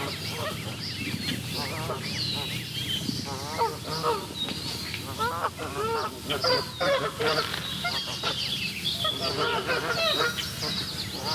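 Two geese honking repeatedly, short calls following one another at irregular intervals, over a steady low background hum.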